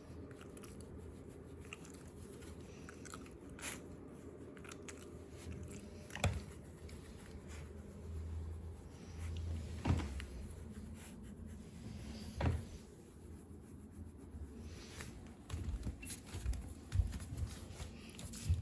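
A dog chewing and gnawing on something, with a few sharp knocks a few seconds apart.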